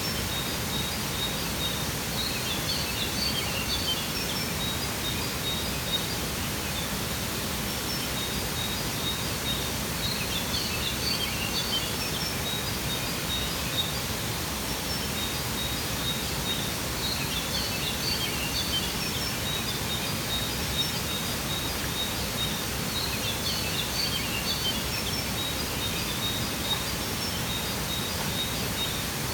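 Steady rush of a waterfall with birds calling over it: a string of short, high repeated notes and a bright twittering phrase that returns about every six to seven seconds.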